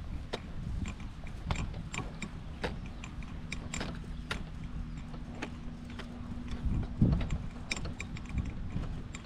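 Irregular clicking and rattling from a three-wheeled golf push cart and the clubs in its bag as it is wheeled away across the grass, over low wind rumble on the microphone. A faint steady hum sits under the middle stretch, and a single low thump comes near the end.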